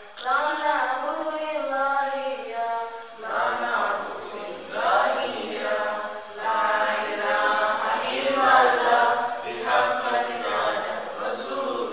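Melodic chanting of a dua (supplication) in long, gliding sung phrases, which become fuller and denser about three seconds in.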